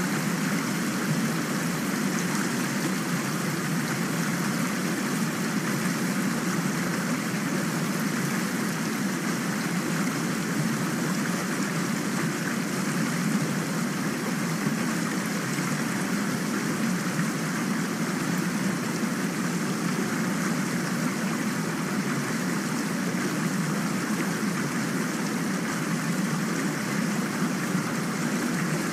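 Recorded rain: a steady, even hiss of falling water with no single drops standing out.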